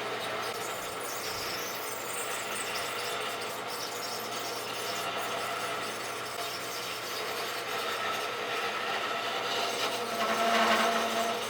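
Rockwell wood lathe running with a turning tool cutting the spinning bat blank: a steady motor hum under a scraping, rubbing noise that grows louder near the end.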